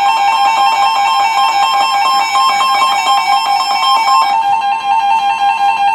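Several weather alert radios sounding their electronic alert tones at once, an overlapping chorus of fast-pulsing beeps near 1 kHz, as a new severe thunderstorm warning comes in. Some of the tones stop about four seconds in, and the rest cut off together just before the warning is read.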